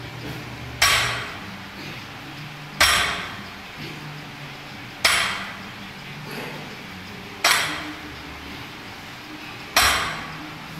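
Loaded barbell's iron plates clanking against the rubber gym floor at the bottom of each rep, five times about every two and a half seconds, each with a short ring.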